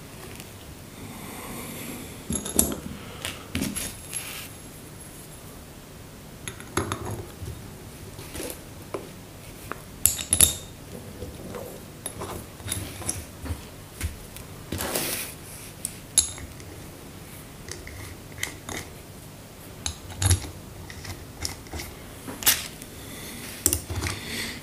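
Irregular metallic clinks, taps and scrapes of hand tools and small metal parts being handled while an LPG gas reducer is put back together, a few sharper knocks now and then.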